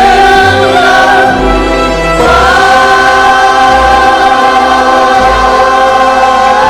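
Music: a choir holding long sustained notes, the chord shifting upward a little over two seconds in.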